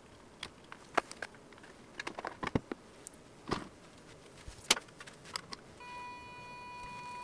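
Scattered small plastic clicks and knocks as wire connectors are plugged into the Arduino motor shield and the 3D-printed plastic cover of a small robot is handled. Near the end a steady high electronic tone comes in and holds for about two seconds.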